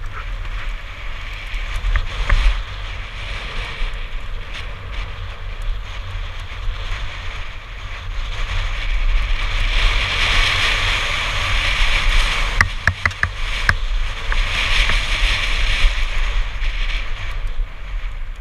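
Wind rushing over a helmet-mounted camera's microphone as a mountain bike descends a wooden boardwalk and then a gravelly dirt trail, mixed with tyre noise and the bike's rattle. The rush swells twice at speed, and a few sharp knocks from the bike over bumps come about twelve to fourteen seconds in.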